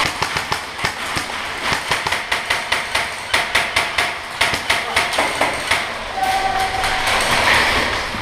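A rapid, irregular run of sharp cracks, several a second, typical of airsoft guns firing during a game. The cracks give way about six seconds in to a brief steady tone and a noisy haze.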